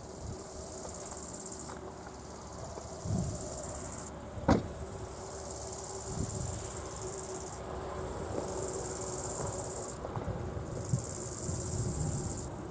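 Insects, crickets or grasshoppers, chirping in high-pitched phrases of a second or two with short gaps. A single sharp click about four and a half seconds in.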